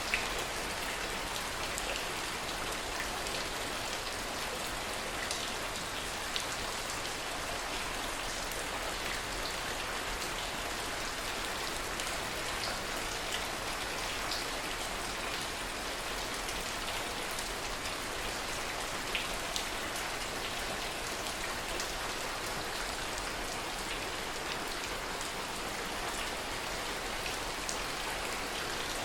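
Steady heavy rain: an even hiss with many scattered sharper drop ticks.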